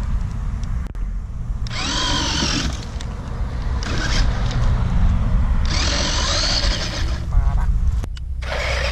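Electric drive motor of a 1/12-scale RC off-road truck whining up and down in short bursts, three times, as the throttle is worked, over a steady low rumble.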